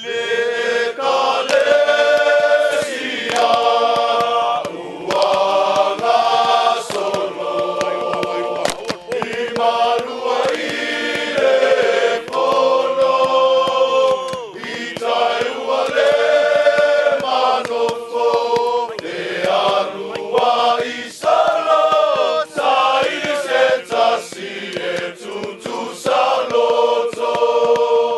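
A group of Samoan soldiers singing together as a choir, in sung phrases a few seconds long with held notes and short breaks between them.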